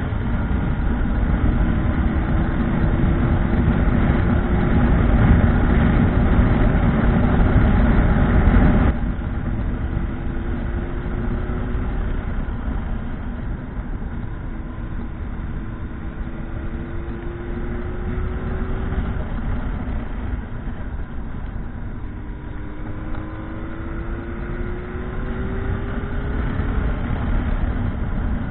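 Motorcycle engine accelerating and shifting up through the gears, its pitch climbing and dropping back several times, with heavy wind noise on the microphone that eases off about nine seconds in.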